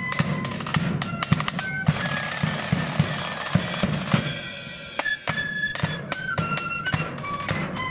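Blood-and-thunder marching flute band playing: flutes carry the melody over rattling side drums, cymbal crashes and a bass drum beat.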